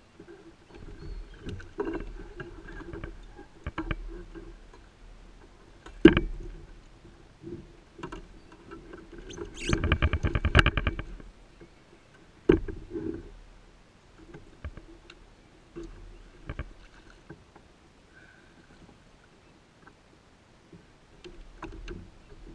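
Striped bass being reeled in and landed from a plastic kayak: a spinning reel turns, with sharp knocks against the hull. A rapid rattling burst lasting about a second and a half comes near the middle, as the fish is brought to the net.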